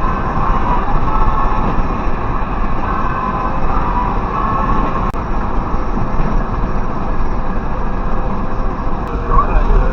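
Steady road noise inside a tractor-trailer's cab at highway speed on a wet road: engine rumble and tyre hiss.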